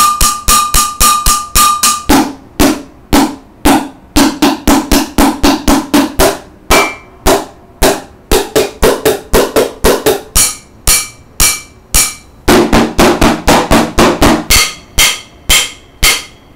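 Drumsticks beating a steady pulse on homemade kitchen percussion: a steel saucepan, a plastic toy bear and other kitchen containers. The strokes come about two or four a second, mixing whole and half beats. The tone changes every couple of seconds as the sticks move from item to item, some items ringing high and metallic, others sounding duller and lower.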